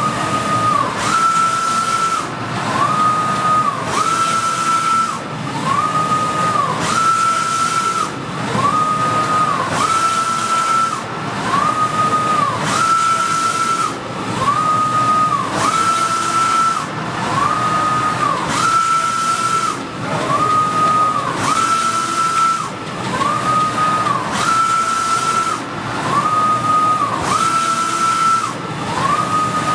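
Softjet-K wide-format inkjet printer with Kyocera print heads printing: its carriage shuttles back and forth about once a second. Each pass is a whine that rises, holds steady and falls away, with a hiss that pulses along with it.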